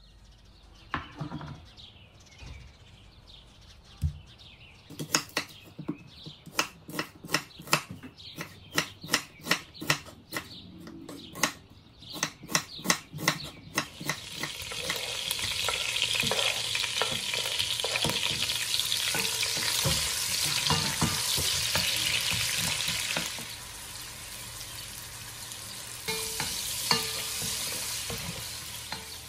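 A knife chopping potato on a wooden cutting board, a long run of sharp taps about two a second. About halfway through it gives way to diced onion sizzling in oil in a cast-iron pot, stirred with a wooden spoon; the sizzle drops a little later on, with a single knock of the spoon near the end.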